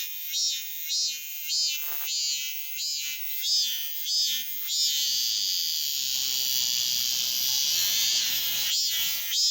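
Male cicadas singing close by: a loud, shrill, pulsing call, about one and a half pulses a second, runs into one unbroken high buzz about halfway through. The pulsing resumes near the end.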